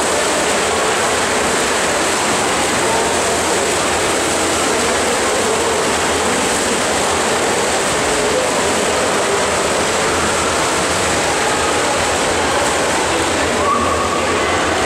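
Steady, loud wash of splashing water from swimmers racing freestyle in an indoor pool hall.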